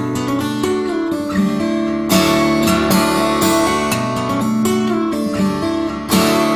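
Background music led by strummed guitar, with chords struck sharply about two seconds in and again near the end.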